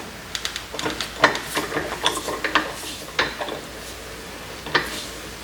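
Allen wrench and steel vise parts clinking and tapping against each other while a Kurt Anglock milling vise is taken apart. A quick run of sharp metallic clicks fills the first three seconds or so, and one more click comes near the end.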